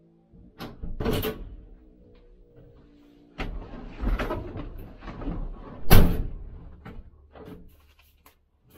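Knocks, thumps and rustling as a person climbs into the cab of a 1966 Dodge A100 van-style truck and settles in the seat, with a sharp bang about six seconds in as the loudest sound and lighter clicks after it. The engine is not yet running.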